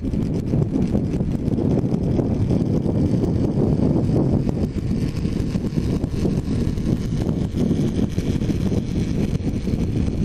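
Heavy wind buffeting on a helmet-mounted GoPro's microphone while riding a motorcycle at road speed: a steady low rumble.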